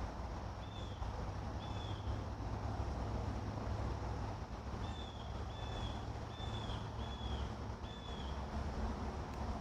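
A bird giving short, high chirps, twice near the start and then five in a row from about five seconds in, over the steady rush of flowing creek water and low wind rumble on the microphone.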